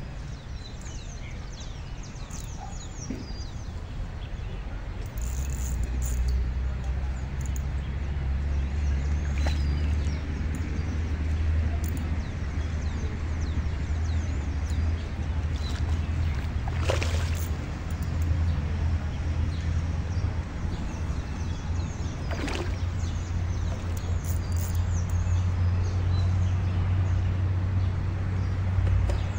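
Steady low hum of a motor running, starting about five seconds in, with birds chirping over it.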